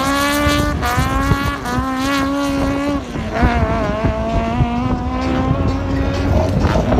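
Two cars launching off the line in a drag race and accelerating hard away. The high engine note holds and then drops several times as they shift up through the gears.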